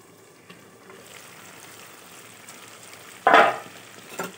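Pork and potato curry sizzling softly in a covered pan. About three seconds in comes a loud short clatter as the metal lid is lifted off, then a small knock.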